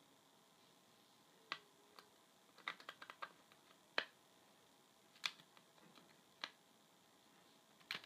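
Faint scattered clicks and taps of handling over near silence: single sharp clicks every second or so, with a quick run of several clicks about three seconds in.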